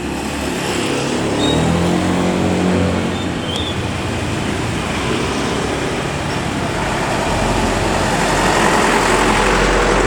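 Scania K410 bus engine pulling away and climbing in pitch over the first couple of seconds, then running on over steady road noise that grows louder, with a deep rumble setting in about seven seconds in.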